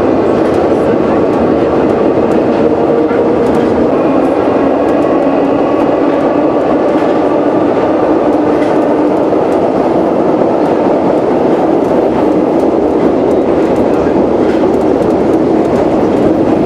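Historic Sprague-Thomson Paris metro train running through a tunnel, heard from inside the car: a loud, steady rolling noise with a whine held over it.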